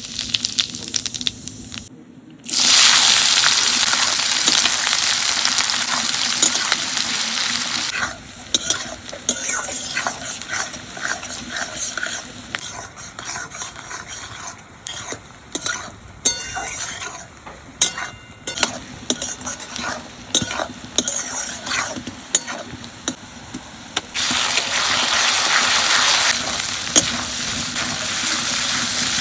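Food frying in hot oil in a pan, sizzling loudly, while a spatula stirs it with many light clicks and scrapes against the pan. The sizzle rises suddenly about two and a half seconds in, dies down to a quieter crackle around eight seconds, and swells loud again near the end.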